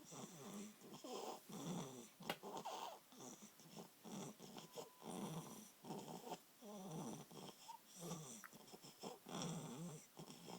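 A baby snoring quietly, a soft snore on each breath, about one a second.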